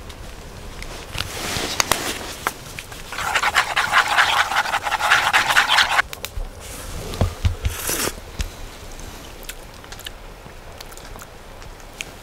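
Preparing a tandoori chicken marinade by hand: scattered clicks and knocks, with a dense, finely pulsing scraping noise lasting about three seconds, starting about three seconds in.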